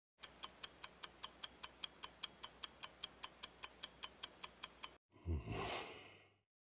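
Faint, rapid, even ticking, about five ticks a second, that stops about five seconds in. It is followed by a brief breathy rush of noise lasting about a second.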